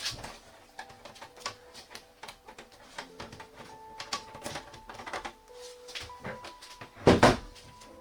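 Light clicks and taps of PC components being handled and fitted, over soft background music, with one louder clatter about seven seconds in.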